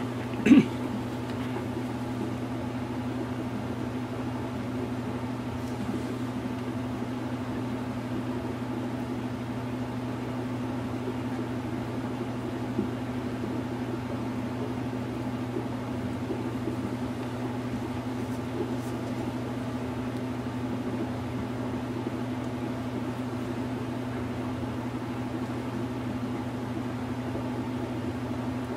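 A steady low machine-like hum, with one sharp click about half a second in.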